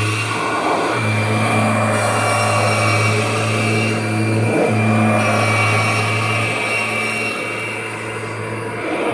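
2001 Kirby G6 upright vacuum's motor running steadily, a low hum with a high, steady whine over it. The sound dips briefly a few times, about half a second in, near the middle and near the end.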